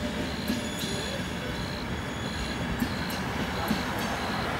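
ÖBB passenger coaches rolling past at speed: a steady rush of wheels on rail, with a few sharp clacks as wheels pass over rail joints.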